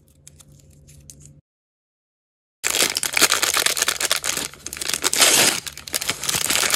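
Faint small clicks of handling, a short dead gap, then from a little before halfway a crinkly wrapper around an L.O.L. Surprise doll being unwrapped and crumpled by hand: dense, loud crinkling.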